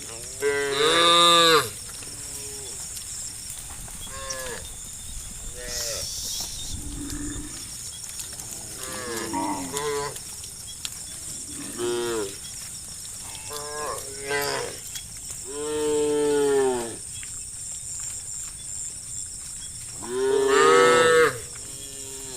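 Cows mooing, about eight long calls one after another with short gaps between them. The loudest calls come about a second in and near the end.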